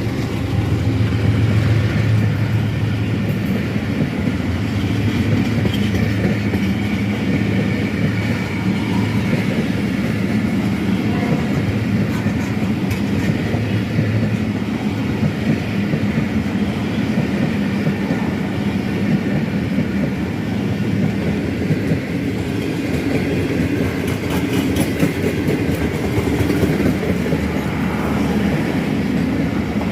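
Khyber Mail passenger train passing close by: a steady hum from the locomotive in the first half, then the coaches rolling past with wheels clicking over the rail joints.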